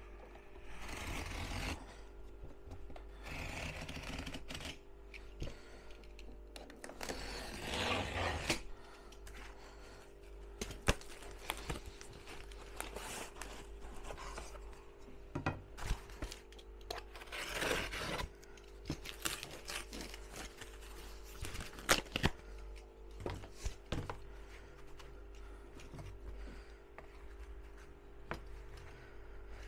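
Cardboard being cut into strips by hand: several rasping, tearing cuts about a second long, with scattered clicks and knocks, over a faint steady hum.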